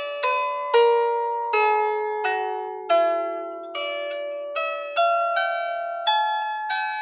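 Lyre harp played as a slow melody of single plucked notes, about one every three-quarters of a second. Each string rings on and fades under the next, over a held low note.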